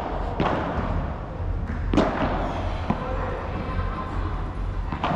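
Padel ball play: sharp knocks of the ball off rackets, the court floor and the walls, about four strikes spaced roughly a second apart.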